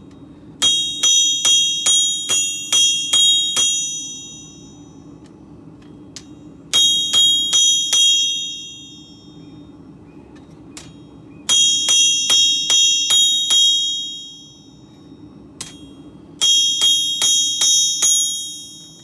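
Hammer blows on hot steel on an anvil, the blade being flattened: four runs of strikes about three a second, each blow ringing on. A steady low hum runs underneath.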